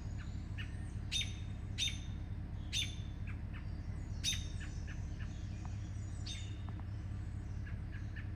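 Wild birds chirping: several sharp, falling calls a second or so apart, the loudest in the first half, with fainter chirps between, over a steady low rumble.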